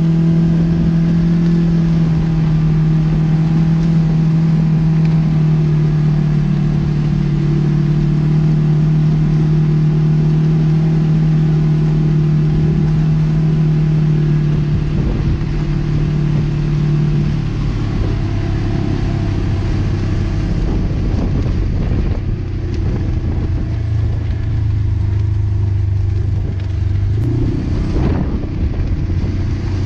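Side-by-side UTV engine running at a steady pitch while driving a dirt trail, heard from inside the open cab. About 17 seconds in the engine note drops lower and knocks and rattles from the rough ground join in.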